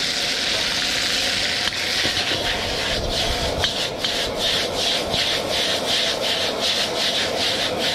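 Fresh wide rice noodles sizzling hard in hot oil in a wok over high heat. From about three seconds in, the sizzle pulses about three times a second as the wok is tossed.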